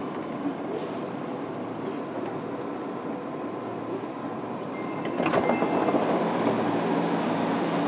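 Onboard running sound inside a JR Kyushu 103 series 1500 motor car in a subway tunnel: a steady rumble of wheels and traction motors. It grows louder about five seconds in, with a clatter of wheels over rail joints.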